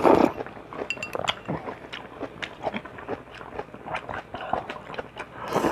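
Close-up eating sounds: slurping soup and rice vermicelli noodles from a bowl, with chewing and short clicks of chopsticks against the porcelain bowl. A slurp at the start and another near the end, with smaller clicks and mouth sounds between.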